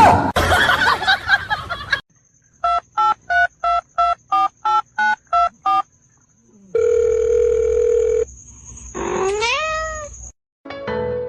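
About nine short electronic beeps in quick succession, then a steady tone, like a telephone's dialing and dial tones, followed near the end by a rising animal call.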